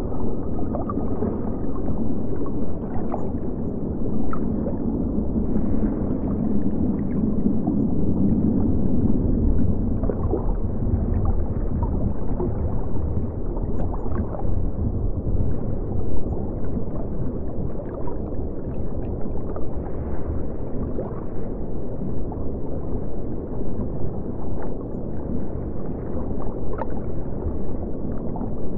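Muffled underwater water ambience: a steady low rush of moving water, dull and without treble, dotted with faint small bubble ticks.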